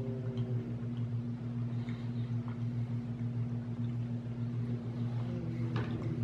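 Steady low hum, like an appliance or mains hum in the room, with a few faint small clicks over it.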